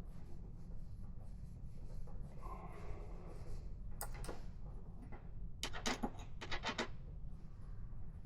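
Small hardware being handled while a motorcycle windshield is fastened: a brief rubbing scrape, then a single click and a quick run of about six sharp clicks. A steady low hum runs underneath.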